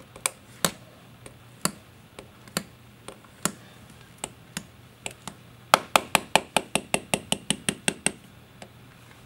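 X-Acto knife tip striking a phone's sapphire-crystal glass screen protector: sharp, glassy clicks, scattered at first, then a quick run of about fourteen, some six a second, in the second half.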